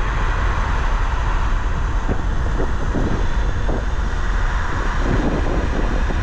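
Steady riding noise from an electric scooter at speed: wind rumbling on the microphone over continuous road and tyre noise.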